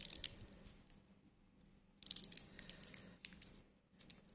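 Handling noise: black cloth gloves rustling and rubbing against a stainless steel watch bracelet, with small clicks of the metal links. It comes in short, faint bouts, at the start and again about two seconds in.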